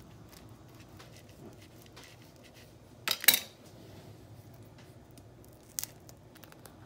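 A metal kitchen knife clatters on a stainless-steel surface in a short cluster of sharp clicks about three seconds in, amid light handling clicks, with a single short click again near the end.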